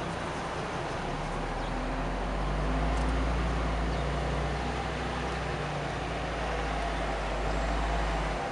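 Open-top tour bus on the move: its engine running with a low steady note, mixed with wind rushing over the open upper deck and buffeting the microphone.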